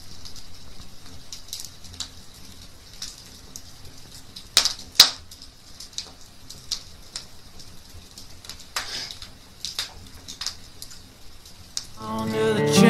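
Wood fire crackling in a fire pit, with a low hiss and irregular sharp pops from the burning logs, two of them loud about four and a half and five seconds in. Guitar music comes in near the end.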